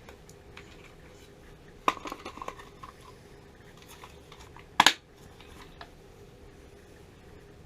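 A sharp click followed by brief light metallic rattling about two seconds in, then a louder double click near five seconds, over a faint steady hum.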